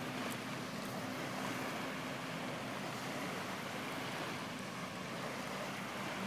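Wind buffeting the microphone over a steady low hum from a distant motorboat engine, whose pitch drops slightly about halfway through.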